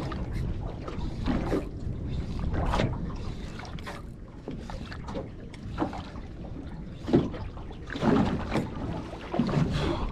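Wind on the microphone and water slapping against the hull of a small aluminium boat, with scattered short knocks.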